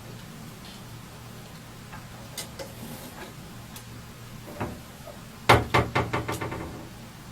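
Knocking on a hard surface: a few scattered light taps, then a loud knock followed by a quick run of knocks that come closer together and fade away, like something bouncing or rattling to rest.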